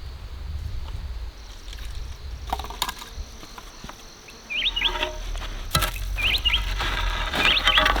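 A bird chirping three times in the second half, short hooked calls about a second and a half apart, over a low rumble with a few sharp clicks. Steady tones join in over the last half.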